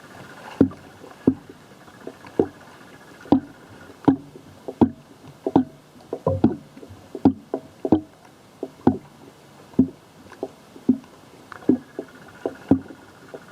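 Pool water slapping against an old camera's microphone. It makes a run of sharp, irregular knocks, one or two a second.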